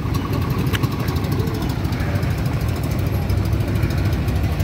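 Outrigger pump boat's engine running steadily at low revs, with an even, rapid chugging pulse.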